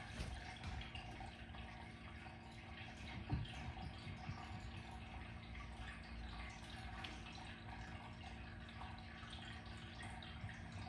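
Steady low room hum with faint scattered taps and one soft thump about three seconds in: a cat's paws and a small toy ball on a wooden floor during a game of fetch.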